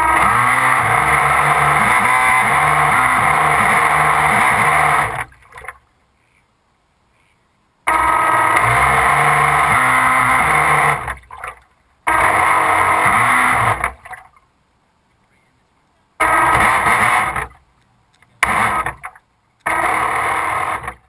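RC boat's motor running loudly in throttle bursts, heard from a camera mounted on the hull. A first burst of about five seconds is followed by several shorter bursts of one to three seconds. Each burst cuts off abruptly into near silence as the boat is driven in to the bank.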